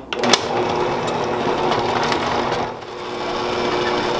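Electric stand mixer switched on with a click, its twin beaters running on low speed through butter and powdered sugar in a glass bowl to make buttercream. The motor sound dips briefly about three seconds in, then runs steadily again.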